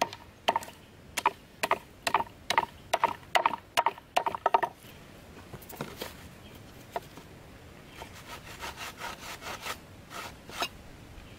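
Small hatchet chopping into a weathered wooden plank: a quick run of sharp chops, about two to three a second, that stops about four and a half seconds in. Later come lighter wooden knocks and scraping as boards and a stick are shifted about.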